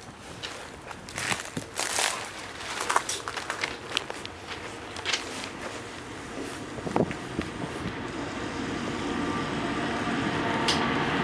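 Crunching footsteps for the first half, then the steady rumble of a railway wagon rolling, growing louder toward the end, with a faint steady whine.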